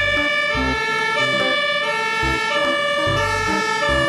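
Fire engine siren sounding in loud held tones that jump from pitch to pitch, with low pulses in between.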